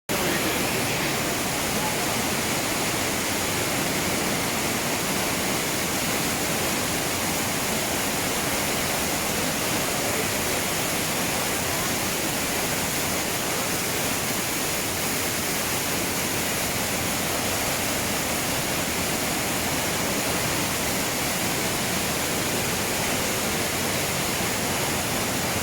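Waterfall in a cave: a steady, unbroken rush of falling water.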